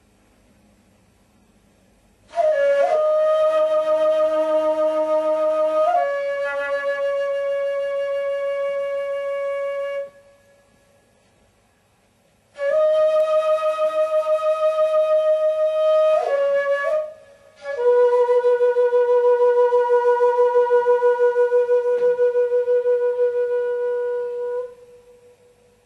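A solo wind instrument playing slow phrases of long held notes with pauses between them; the final long note has a steady vibrato.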